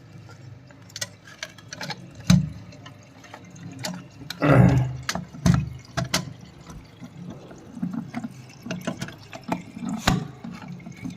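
Plastic parts of a concealed cistern's flush mechanism being handled and pushed into place: irregular clicks and knocks, with water dripping and splashing. A louder splash-like burst comes about halfway through.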